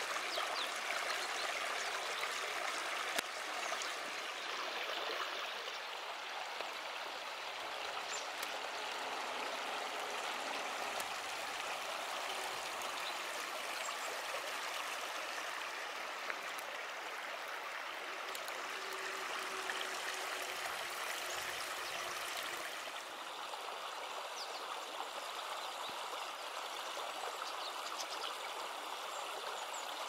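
Small forest brook babbling steadily as it flows through a shallow channel. About three-quarters of the way through, its higher hiss drops a little.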